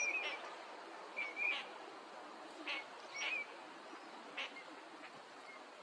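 Eurasian teal drakes giving short, whistled "krick" calls, about seven of them, some in quick pairs, at irregular intervals.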